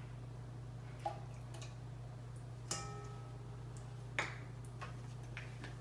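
Light taps and clinks of a measuring cup against a stainless steel mixing bowl and the counter: three sharper clinks about one, two and a half and four seconds in, the middle one ringing briefly, with a few fainter ticks, over a steady low hum.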